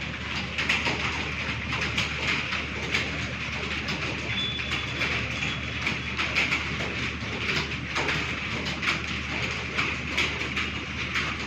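Computer keyboard keys typed fast: a dense, continuous clatter of irregular key clicks.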